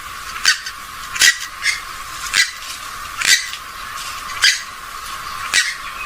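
Rail-family water bird, the swamphen or moorhen kind used as a lure call, giving short, sharp, high calls about once a second, some in quick pairs.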